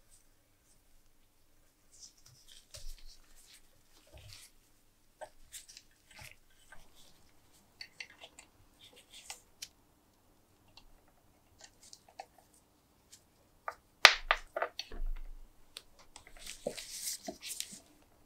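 Hand tools working on a cast aluminium lamp housing: scattered small scrapes and clicks of a thread tap turning in a hole, then a steel pick scraping old rusty debris out of a threaded opening. A burst of sharper clicks comes partway through and a longer scrape near the end.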